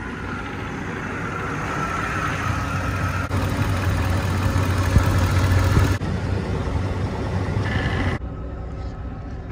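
A 2011 Ford F-250's 6.2-litre gas V8 engine idling, a steady low hum that shifts abruptly twice in the second half.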